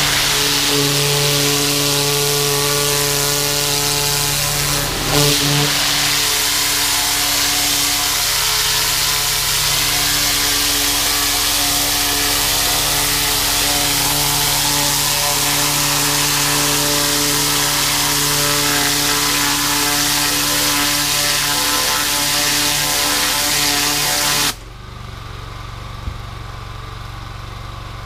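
Pressure washer running steadily, its engine sounding under the hiss of the high-pressure spray. Near the end the spray hiss cuts off suddenly as the trigger is released, and the engine keeps running.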